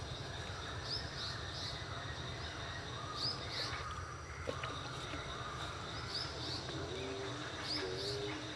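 Outdoor ambience: small birds chirping in short, quick high notes that recur every second or two, over a steady high insect drone and a low background rumble. A few short low notes sound near the end.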